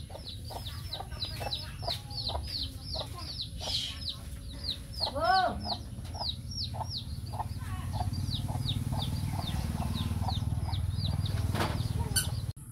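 Chicks peeping steadily in quick, high, falling cheeps, several a second, with a hen clucking softly among them and one louder hen call about five seconds in.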